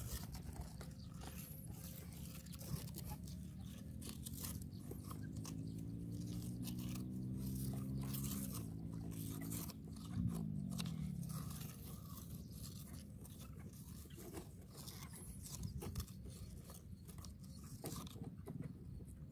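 Thin bamboo stick scraping and jabbing into damp soil and crunching the loose clods while digging out a crab burrow. A low hum swells in the middle and falls away about ten seconds in.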